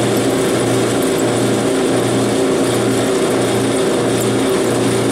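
Clausing 5914 lathe, converted to CNC, running a programmed test cut with its chuck spinning: a steady motor hum made of several tones, with a regular pulsing in the low hum.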